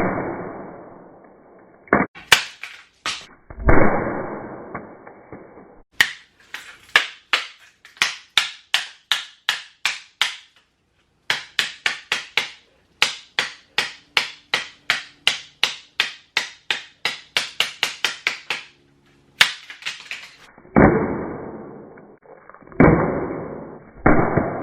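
Hard impacts of phones being thrown and slammed together, a battered iPhone 4S hitting an LG flip phone, each a sharp crack with a ringing tail. Several strike near the start and two more near the end. In between comes a long run of quick, evenly spaced sharp clicks, about two to three a second.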